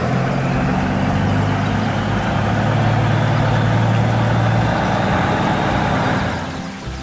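Heavy truck engine sound effect running steadily as the cartoon concrete mixer truck pulls away, fading out near the end.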